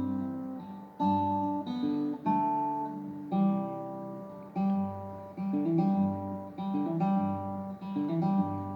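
Acoustic guitar strumming chords in a steady rhythm, roughly one strum a second, each chord left ringing, with no voice over it.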